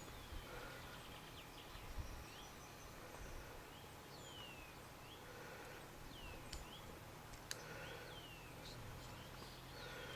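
Faint outdoor ambience with a small bird calling: short high whistled notes that slide downward, repeated about once a second. Two sharp ticks are heard past the middle.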